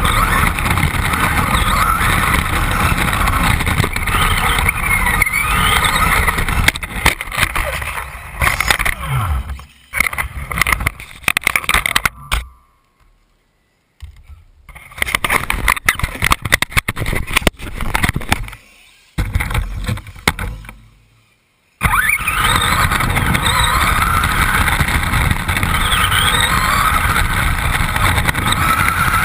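Onboard sound of a radio-controlled buggy racing: a loud, rattling rumble of the chassis and wheels over the ground, with short rising and falling motor whines. Around the middle the noise cuts out to near silence twice, for a second or two each time.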